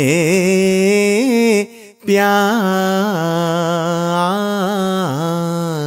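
Male voice singing a ginan (Ismaili devotional hymn), drawing out the syllable before 'pyār' of the refrain in a long ornamented melisma. There is a short break for breath about two seconds in.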